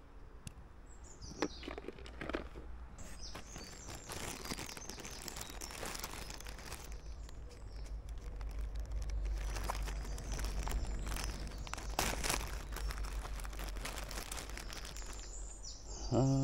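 Small birds chirping over a steady low rumble, with irregular rustling and handling clicks close by. A cow begins to moo right at the end.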